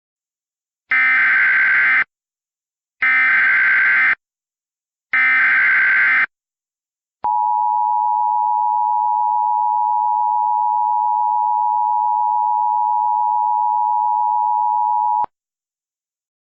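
Emergency Alert System tones opening an alert. First come three identical bursts of SAME header data, each a harsh digital warble about a second long. Then the steady two-tone attention signal (853 and 960 Hz) sounds for about eight seconds and cuts off sharply.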